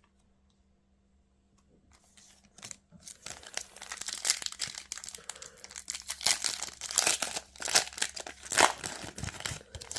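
Plastic wrapper of a trading card booster pack crinkling and tearing as it is ripped open, starting faintly about two seconds in and growing into a dense crackle.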